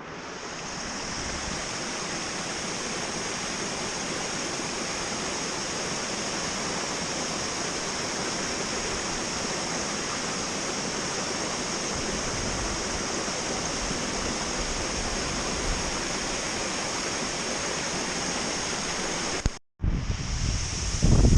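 Steady rush of flowing creek water or a waterfall, with a steady high hiss above it. Near the end it cuts off for a moment and gives way to wind buffeting the microphone.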